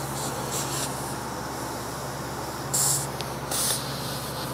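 Steady hum of shop machinery with short bursts of compressed-air hiss from an air-bearing end-mill grinding fixture as an end mill is fitted into it; the two loudest hisses come a little past the middle.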